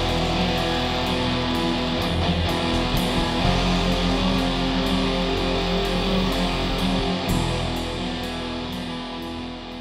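Background music led by guitar, steady and then getting quieter near the end as it fades out.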